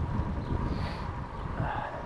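Gusty wind buffeting a GoPro action camera's microphone while riding a bicycle: an uneven low rumble, with a faint steady thin whine underneath.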